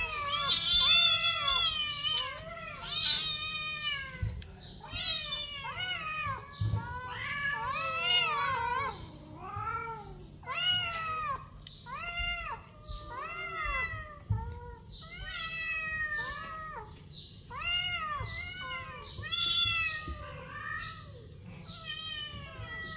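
Several kittens meowing over and over, one call after another and sometimes overlapping, each meow rising and then falling in pitch.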